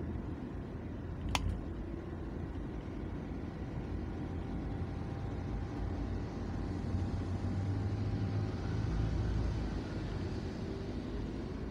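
Steady low rumble of a car driving at road speed, tyres and engine together, swelling a little past the middle. One sharp click about a second and a half in.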